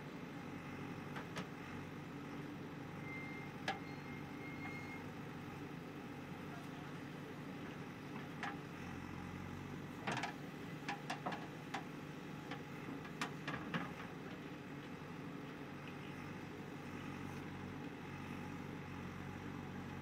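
JCB 3DX backhoe loader's diesel engine running steadily under hydraulic load while the backhoe arm digs soil and loads it into a dump truck. A cluster of sharp clanks and knocks comes about halfway through, as the bucket swings over the truck bed.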